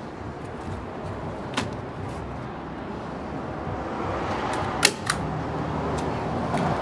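Hand staple gun firing three times, about a second and a half in and twice close together near the end, tacking a pre-made flashing corner to plywood sheathing, over a steady background hum.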